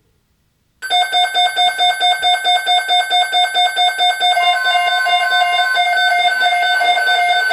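Weather radio alert alarm starting suddenly about a second in: a loud electronic beep pulsing about five times a second. From about four seconds in the pulsing merges into a steady tone with higher beeps joining, the alarm of weather radios receiving a new alert, here a tornado watch.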